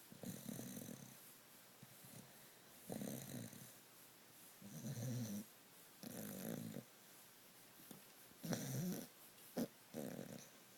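A sleeping pet snoring: about seven snoring breaths, each under a second, coming roughly every one and a half seconds, with one short sharp one near the end.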